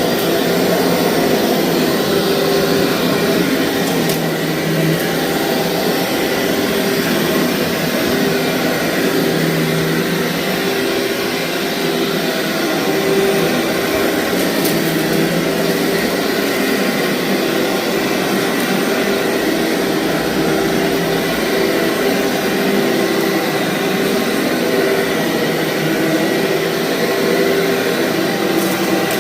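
Vacuum cleaner running steadily as it is pushed over thick, fluffy carpet: an even motor hum with a held tone and airflow noise.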